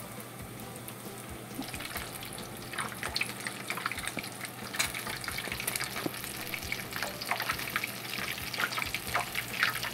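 Spring rolls deep-frying in 160 °C oil in a frying pan: a steady sizzle with sharp popping crackles, growing busier about two seconds in.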